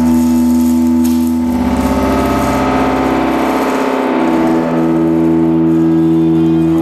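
Electroacoustic drone music: several steady sustained tones held together. For about three seconds in the middle a dense, wavering, beating swell rises over them, and then the steady tones return.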